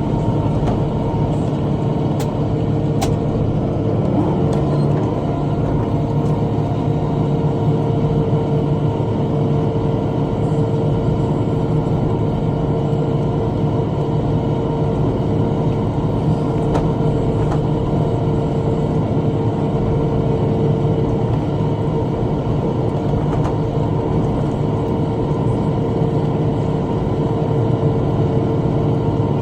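Tractor engine running steadily under load while driving a rotary brush cutter (bush hog), a constant mechanical drone with a few faint ticks about two to three seconds in.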